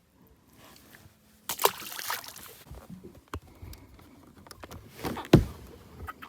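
Knocks and rustling of gear being handled on a bass boat deck, with a rushing scrape about a second and a half in and a loud thump about five seconds in.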